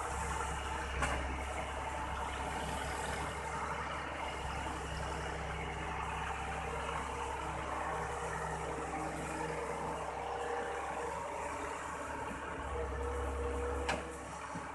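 Dongfeng dump truck's diesel engine running steadily at idle, with a sharp click about a second in and another near the end.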